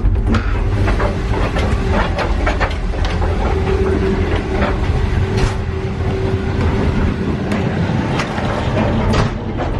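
Indian Pacific passenger carriage running on the rails, heard from inside the moving car: a steady low rumble with scattered clicks and knocks.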